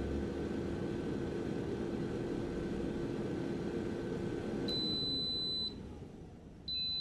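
Philips Airfryer's fan running with a steady hum, then switching off and winding down about two-thirds in, followed by long high-pitched beeps, one right away and another near the end: the timer has run out and the cooking cycle is done.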